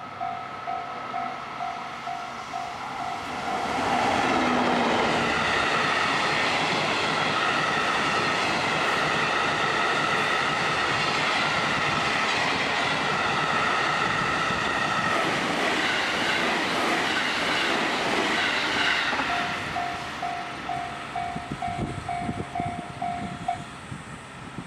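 Level-crossing warning bell ringing at about two strikes a second; about four seconds in it is drowned out as a train hauled by an EF64 electric locomotive runs over the crossing for about fifteen seconds. As the train clears, the bell is heard again and then stops a second or so before the end.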